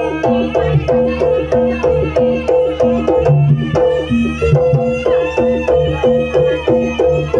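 Live jaranan music from a Javanese gamelan-style ensemble, drums and tuned gongs playing a steady, repeating beat that drives the horse dance.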